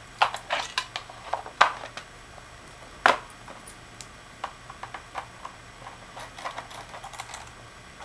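Plastic memory-bay cover on the underside of an HP Compaq Presario V5000 laptop being fitted back into place with a series of sharp clicks and knocks, the loudest about three seconds in. Lighter ticking follows as a small Phillips screwdriver works the cover's retaining screw.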